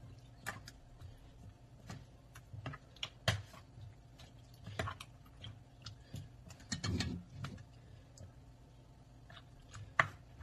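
Faint, irregular clicks and taps of a plastic spoon knocking and scraping against a plastic mixing bowl as a thick, creamy fruit salad is stirred, with a duller knock about seven seconds in.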